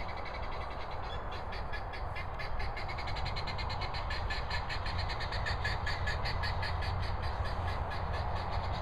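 An animal calling in a rapid, even series of short clicking chirps, about five a second, over a low steady rumble.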